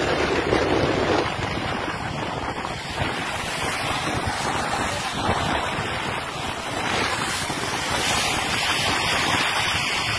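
Wind rushing over the microphone from a vehicle's open window, with steady tyre and road noise as it drives along a hail-covered road. A continuous loud rush that swells and eases without a break.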